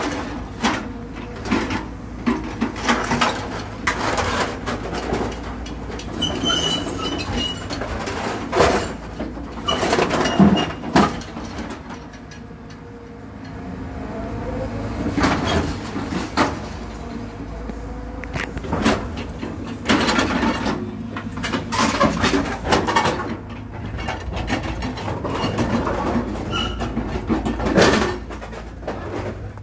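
A scrapyard excavator's engine runs steadily under a hydraulic scrap-grapple claw. Over it come repeated crunches, bangs and brief screeches of car-body metal being gripped and torn, with a quieter lull about twelve seconds in.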